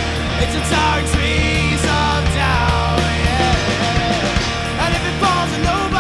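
Pop-punk band recording playing loudly: a full rock band passage with a steady bass line, drum hits and melodic guitar or vocal lines sliding in pitch above.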